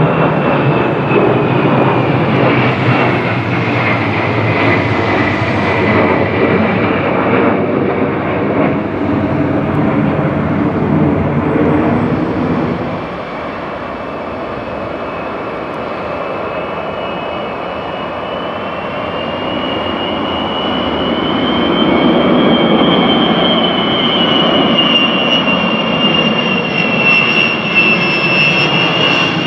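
Ilyushin Il-76LL flying testbed, four jet engines, one of them a PD-14 turbofan, flying past with a steady jet noise and a high turbine whine that falls in pitch as it moves away. About halfway through the sound drops abruptly. It then grows louder again as the aircraft comes in low on approach, its whine rising and then dipping as it passes close.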